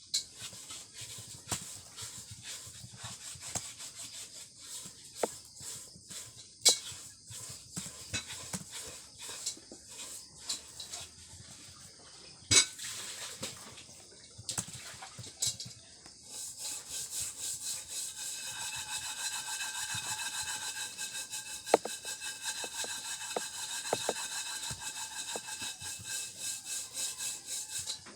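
Computer keyboard typing: irregular keystroke clicks, which turn into a fast, continuous clatter about halfway through.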